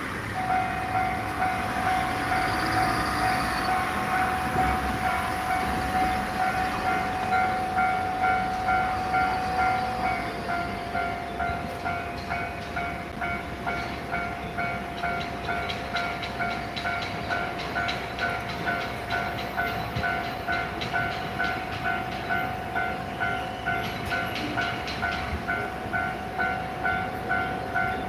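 Japanese railway level-crossing warning bell ringing in a steady repeating clang, about two strikes a second, over a held electronic tone, signalling that the crossing is closed for an approaching train.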